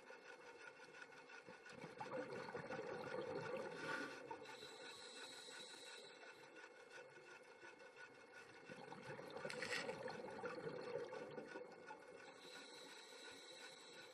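Faint, scratchy underwater noise. It swells twice into a louder rushing sound lasting a few seconds each, about two seconds in and again near nine seconds.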